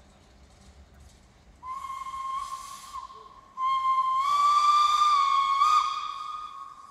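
Narrow-gauge steam locomotive's whistle sounding for departure: a short blast, then a longer, louder one on the same steady tone that fades away near the end.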